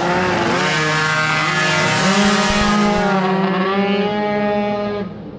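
Tomos moped's two-stroke engine racing at high revs. The pitch climbs over the first two seconds, steps up about two seconds in, holds steady, then drops away suddenly near the end.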